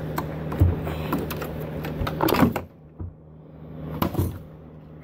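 Metal clunks, knocks and scrapes of the old K03 turbocharger being handled and worked loose by hand in the engine bay, with a cluster of clatter about two and a half seconds in, over a steady low hum.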